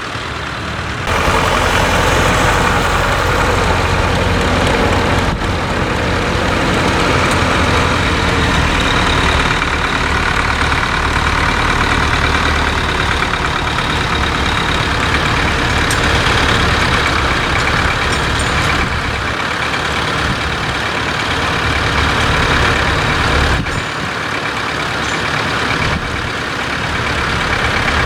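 Tractor engine running steadily, with sudden changes in the sound about a second in and again about four seconds before the end.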